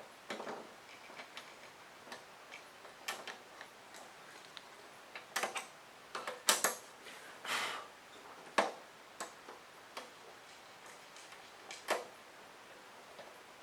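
Irregular light clicks and short scrapes of a screw, screwdriver and the metal parts of a kerosene heater being handled as a part is screwed back in place. The loudest clicks come about six and a half and eight and a half seconds in, with a longer scrape between them.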